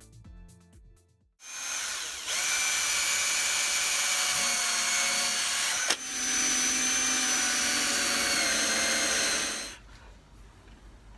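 Power drill boring into a wooden log: about eight seconds of steady drilling, with a brief break about halfway, before it stops.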